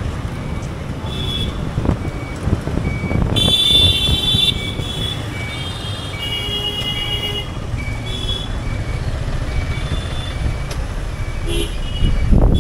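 Suzuki SF motorcycle riding slowly through congested street traffic, its engine and the road making a low rumble. Vehicle horns honk several times, loudest about three and a half seconds in, over a run of short, evenly spaced high beeps.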